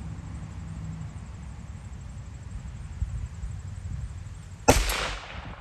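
A single shot from a Kel-Tec P50 pistol in 5.7×28mm: one sharp crack near the end, followed by a short echo that dies away over most of a second.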